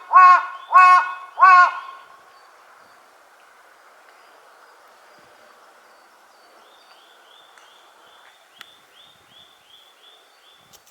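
Large-billed crow cawing: three loud, harsh caws in the first two seconds, evenly spaced. In the second half a faint run of short, high, repeated calls comes about two a second.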